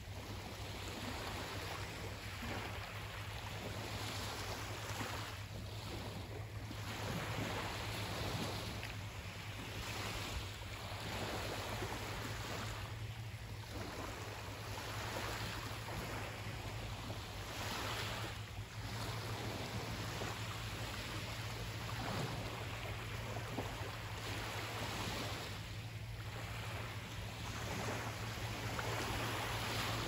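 Sea waves breaking and washing in, surging every few seconds, over a steady low hum.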